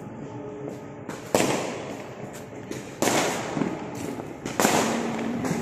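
Fireworks going off: three loud bangs about a second and a half apart, each trailing off over about a second.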